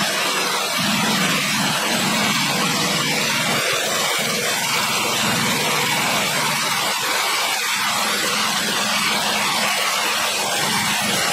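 Portable band sawmill's engine running steadily under load.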